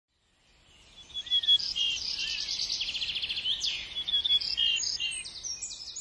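A songbird singing a fast, varied song of high trills and chirps, fading in about a second in.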